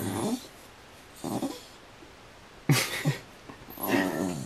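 Small dog making short grumbling, whiny vocal sounds in about four brief bursts.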